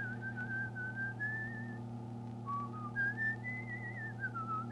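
A person whistling a wandering tune, each note wobbling with a quick vibrato, in short phrases that rise and fall. A steady low hum runs underneath.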